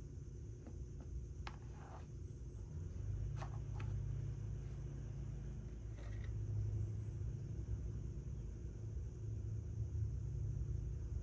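Low steady rumble that swells about three seconds in, with a few light clicks and taps in the first four seconds.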